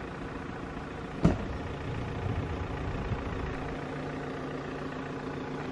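A motor vehicle's engine idling steadily nearby, with a single sharp knock about a second in.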